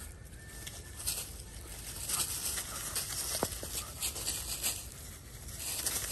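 Dry leaf litter and sandy ground rustling and scuffing in short crackly bursts as an otter and dogs scramble over it.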